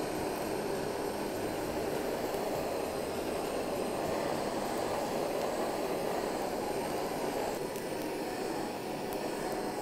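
Handheld gas blowtorch burning with a steady hiss of flame as it singes the hair off raw pork belly skin.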